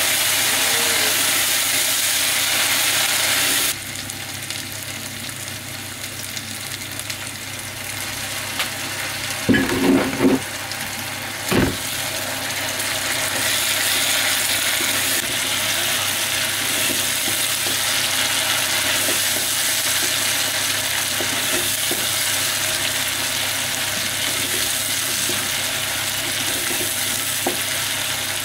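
Food sizzling as it fries in a cooking pot and is stirred. The sizzle drops suddenly in level about four seconds in, and a few sharp knocks come at about ten and twelve seconds in.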